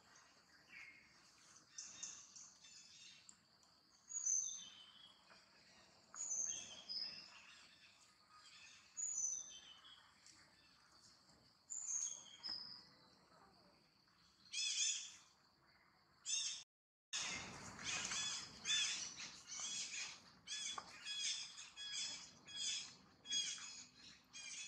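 Wild birds calling outdoors: short high chirps and brief gliding calls every second or two, over a steady high insect drone. After a brief cut, a quicker run of sharp, harsh calls comes about two a second.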